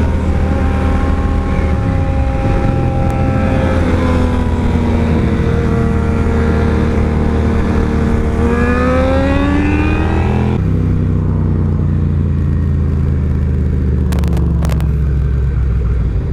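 A loud Suzuki SV650's V-twin engine under the rider, pitch rising as the bike accelerates. About ten seconds in the throttle shuts and the engine note falls away slowly.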